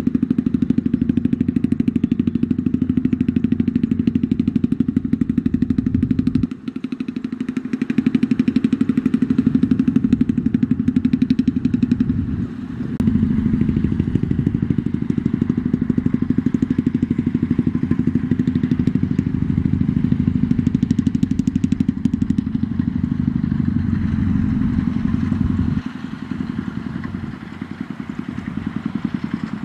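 Engine of a homemade farm truck running with a fast, even beat as it hauls a heavy load of rice sacks through soft mud. The sound dips briefly about six and twelve seconds in and eases near the end.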